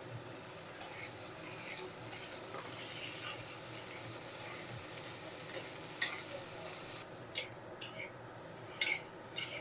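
Potato and aubergine pieces sizzling as they fry in hot mustard oil in a kadai, stirred with a metal spatula. About seven seconds in the sizzle drops, leaving sharp scrapes and clinks of the spatula against the pan.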